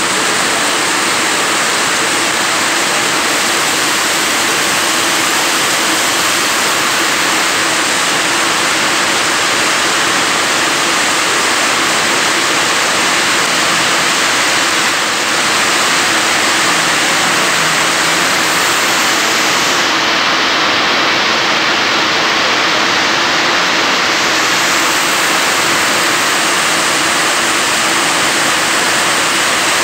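Heavy rain pouring down, a loud, steady, even rush.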